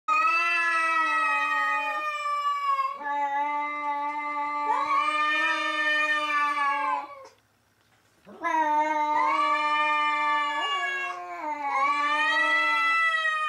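Two cats squaring off before a fight, yowling: long, drawn-out caterwauls with a wavering pitch, about seven seconds of continuous yowling, a short silence, then yowling again.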